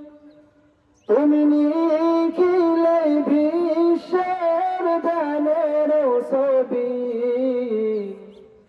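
A man singing a Bengali Islamic song (gojol) solo into a microphone with no instruments. One long, ornamented phrase with a wavering, bending pitch begins about a second in and fades away near the end.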